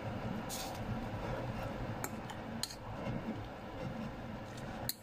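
Cutlery and dishes clinking, a few sharp light clicks spread apart, as food is served or eaten.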